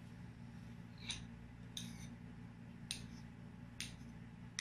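A fork clinking lightly against a plate about five times, roughly a second apart, as a piece of soft bread loaf is cut, over a faint steady hum.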